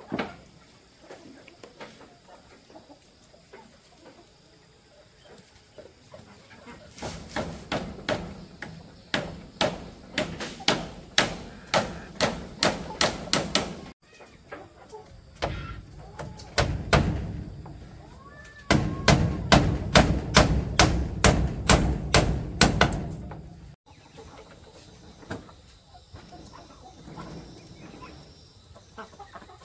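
Hammer driving nails into wooden boards, in two long runs of quick, even strokes, the second run faster than the first.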